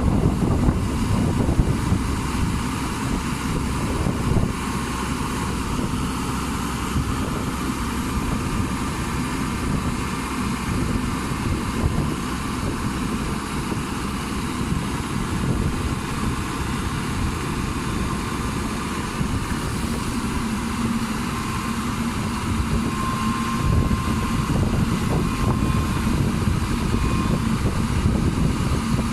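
Crown Sumo rice combine harvester's diesel engine running steadily. A faint steady whine joins in about two-thirds of the way through.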